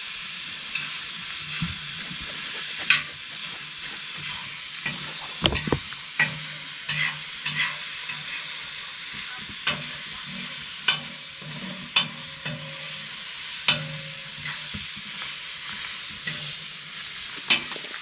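Steady sizzling hiss of food frying in a hot pan, with sharp crackles and ticks scattered throughout.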